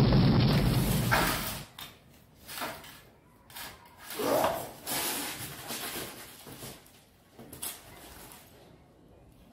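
A loud explosion-like blast with crackling sparks, an electrical flash, cuts off about one and a half seconds in. After it come scattered faint sounds, the loudest a short cry that rises and falls about four seconds in.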